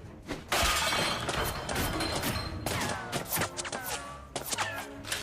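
A sudden loud crash with a long shattering noise starting about half a second in, followed by a run of sharp clicks and repeated falling whistling tones.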